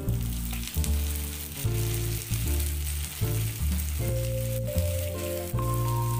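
Dough pastries shallow-frying in oil in a pan, the oil sizzling steadily, under background music with a bass line that changes note about twice a second.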